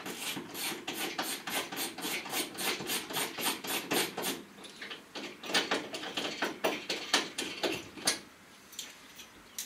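Hand ratchet clicking in quick, even strokes, about four a second, as it undoes the bolts of cargo tie-down points. From about five seconds in come slower, louder, irregular clicks and metal knocks.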